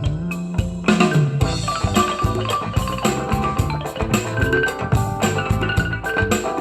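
Music with a steady drum beat, deep bass notes and a bright mallet-like melody, played through a Deccon AK15-201 15-inch portable trolley PA speaker as a sound test.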